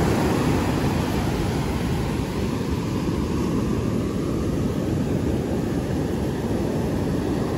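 Ocean surf breaking on a beach: a steady, unbroken roar.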